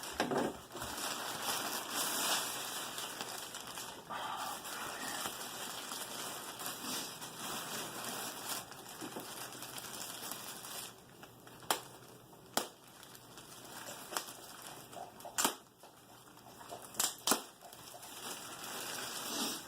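Packaging being unwrapped by hand: wrapping rustling and crinkling throughout, with several sharp clicks or snaps in the second half.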